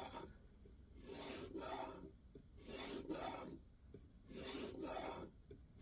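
A 2000-grit sharpening stone drawn along the edge of an N690 steel knife blade in a guided sharpening system: separate scraping strokes, each under a second long, about one every one and a half seconds.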